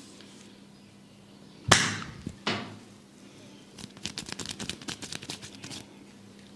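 Two sharp slaps about a second apart, the first the loudest, then a quick run of light taps lasting about two seconds: hands striking the head in a barber's tapping massage.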